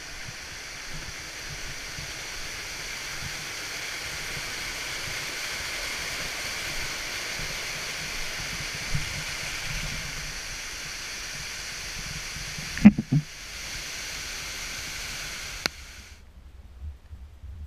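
A small waterfall cascading over rock ledges, running full with high water: a steady rushing of water. There is one sharp knock about 13 seconds in. The rush cuts off abruptly near the end, leaving a quieter low rumble.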